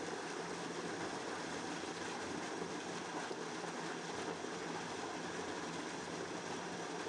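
Tubewell water gushing steadily from a wide outlet pipe and splashing into a concrete tank, with a steady low hum underneath from the pump.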